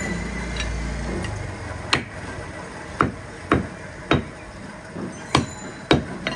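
Butcher's cleaver chopping goat meat on a wooden chopping block: six sharp, irregularly spaced chops, starting about two seconds in.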